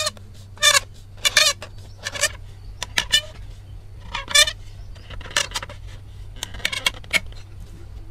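Bamboo rail squeaking as it is twisted and forced into the round socket of a bamboo post: a string of short, wavering squeals, about ten at irregular intervals, from the tight bamboo-on-bamboo joint rubbing.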